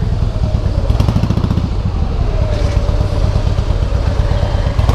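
Harley-Davidson Softail Heritage's air-cooled V-twin running through Screamin' Eagle exhausts while being ridden, a steady rapid engine beat, with a faint thin high tone over it in the second half.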